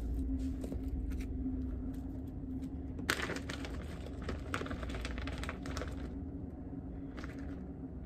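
Thin plastic bag crinkling and rustling for about three seconds, starting about three seconds in, as a tortilla is drawn out of it, after a few light crinkles of plastic wrap in the first second. A steady low hum runs underneath.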